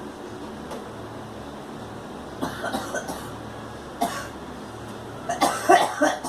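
A girl coughing in short fits: a quick run of coughs about two and a half seconds in, a single cough around four seconds, then a louder fit of coughs near the end.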